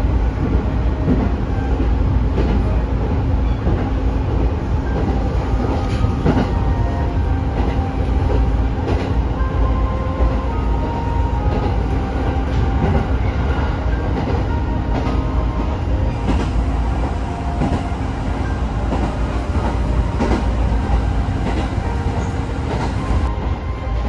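A train running, heard from inside the passenger car: a steady rumble with the wheels ticking over the rail joints.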